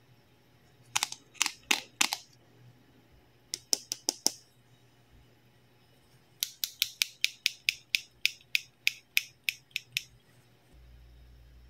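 Blue plastic toy tweezers from a toy doctor set, squeezed so the tips click together. There are a few sharp plastic clicks in two short groups, then a run of about four clicks a second for several seconds.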